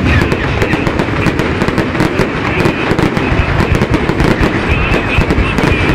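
Festive fireworks display: a dense, continuous barrage of bangs and crackles, many to the second, with no pause.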